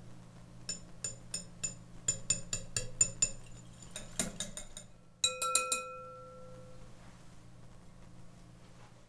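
A hand whisk clinking against the side of a bowl while egg yolks are mixed, about three or four quick clicks a second. About five seconds in come a few sharp taps on the bowl, and the bowl rings on for a second or so.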